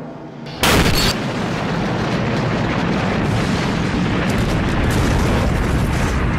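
A sudden loud explosion about half a second in, followed by a sustained low rumble of the blast and fire.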